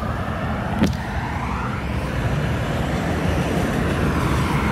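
Cars driving past close by: steady tyre and engine noise of passing road traffic, with one brief click about a second in.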